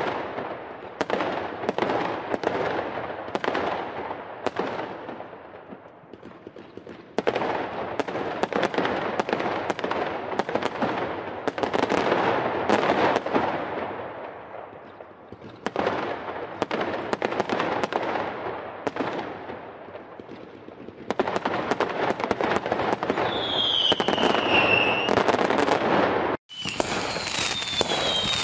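Fireworks going off in quick succession: many sharp bangs and crackles coming in waves that swell and fade every few seconds. Near the end, falling whistles from whistling fireworks cut through, and the sound drops out abruptly for a moment about 26 seconds in.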